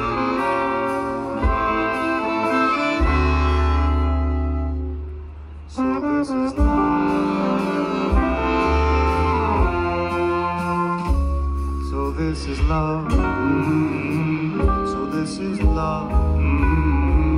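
Live band playing an instrumental passage, with no lyrics sung. The music dips briefly about five seconds in, then picks back up.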